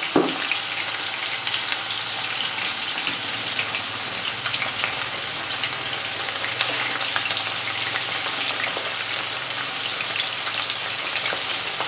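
Batter-coated prawns deep-frying in hot oil in a kadai: a steady sizzle full of fine crackles, with a slotted spoon stirring through the oil. A single sharp tap right at the start.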